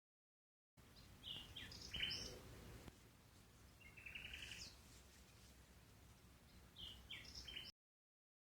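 A songbird singing three short, high chirping phrases a few seconds apart; the first and last phrase are alike, over faint outdoor background noise. The sound drops out to dead silence at the start and again near the end.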